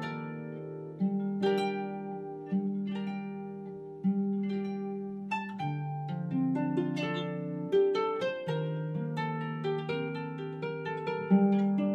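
Harp music: a flowing run of plucked notes that ring and fade, over a repeating pattern of low bass notes.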